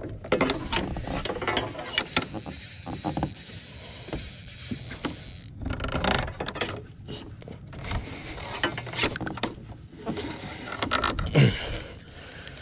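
Spinning reel cranked in spurts against a hooked fish, its gears and handle giving a fast rattling clicking, with one louder knock near the end.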